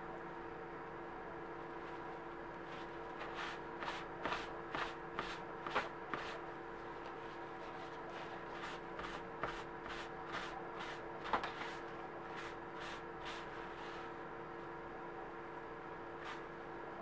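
Paper towel rubbed briskly over a freshly dyed leather key chain on a paper-towel pad: a run of short papery rustling strokes, about two to three a second, starting a few seconds in and dying away near the end, over a steady faint hum.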